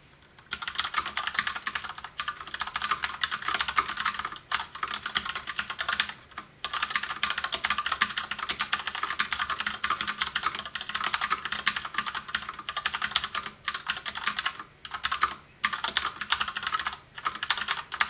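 Fast, continuous typing on an EDJO 87-key mechanical keyboard with red linear switches: a dense run of key strokes that starts about half a second in, with a few short pauses. The reviewer calls the sound rather quiet for a mechanical switch.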